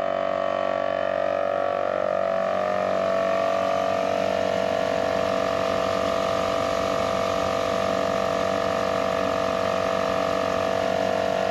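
Morrflate Ten Six portable air compressor running steadily under load, a constant drone with a fixed pitch, while it inflates four tires at once through a shared hose system.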